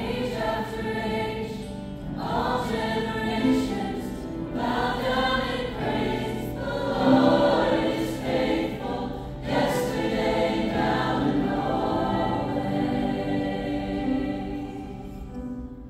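Choir singing a gospel worship song over a steady low accompaniment, fading down near the end.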